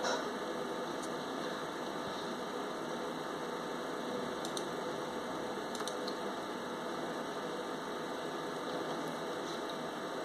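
Steady background hum and hiss of room noise, with a few faint ticks.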